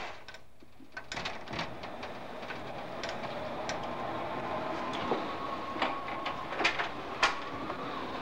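Storm noise heard from inside a house as a tornado nears: a steady rush with a faint whistle from a few seconds in, and scattered sharp clicks and knocks.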